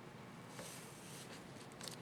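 Faint small clicks and a brief soft scrape of small plastic laptop keyboard parts being handled: the keycap and its retainer clips.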